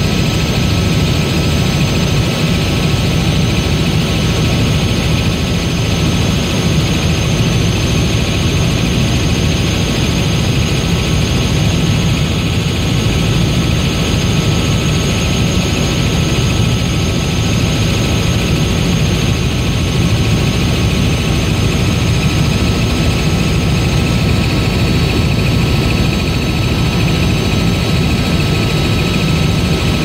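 Steady engine and airframe drone heard from inside a small aircraft's cabin in flight, deep and constant, with a thin high whine running through it.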